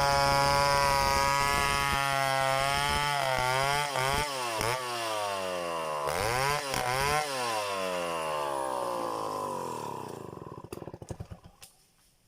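Stihl 070 two-stroke chainsaw running at a steady speed, its pitch then dipping and rising several times, before it winds down and stops about ten seconds in. Scattered clicks follow in near silence.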